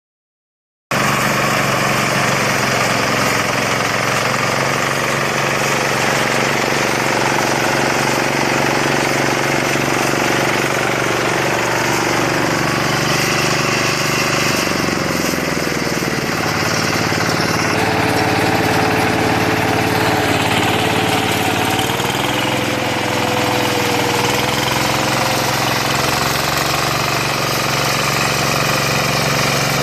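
A 4LZ-1.2 mini combine rice harvester running: steady engine and machinery noise, with its pitch shifting slightly a couple of times.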